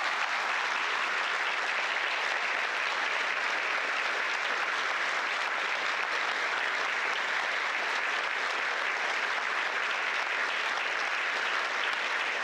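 Audience applauding: steady, continuous clapping from a large crowd.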